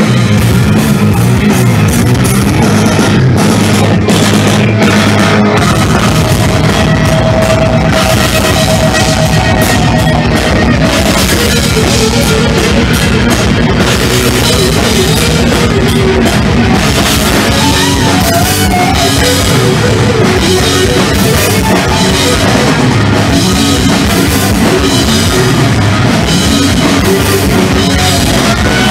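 Heavy metal band playing live: distorted electric guitars, bass and a pounding drum kit, loud and continuous.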